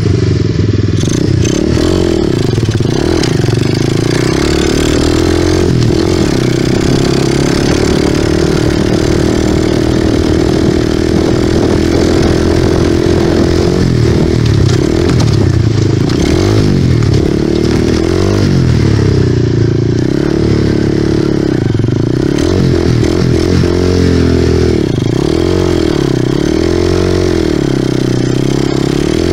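Small off-road vehicle engine running under way, heard close from a camera mounted on the handlebars, its pitch rising and falling as the throttle is opened and eased. The revving swings become more frequent over the second half.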